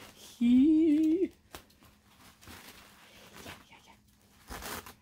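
A woman's short hummed squeal of delight, about a second long and wavering in pitch, followed by faint rustling and crinkling of package wrapping as she unwraps it.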